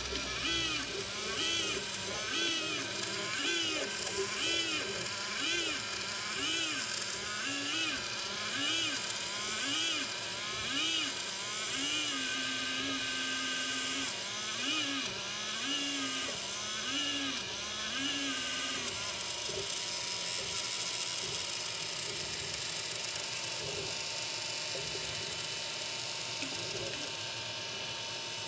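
Elegoo Neptune 3 Pro 3D printer running, its motors whining in repeated rising-and-falling pitch sweeps about once a second, the odd sound the owner is asking about. About two-thirds of the way through the sweeps stop, leaving a steady whir with a faint high tone.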